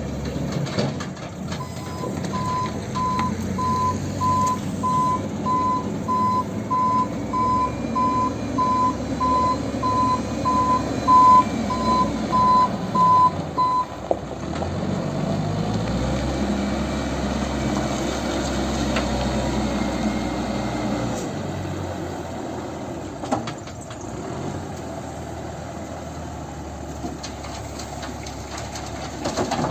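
Reversing alarm beeping steadily, just under twice a second, over a running diesel engine of heavy loading machinery; the beeping stops about halfway through. After it stops the engine note shifts and a deeper rumble comes in for several seconds, then the engine runs on more quietly.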